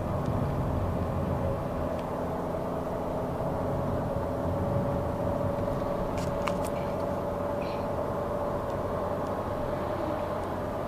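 Fiat Grand Siena gearbox giving a steady whine at cruising speed in the upper gears, over low engine and road rumble inside the cabin. The owner takes the whine for a gearbox defect that appears between 75 and 100 km/h, which Fiat's engineers call normal.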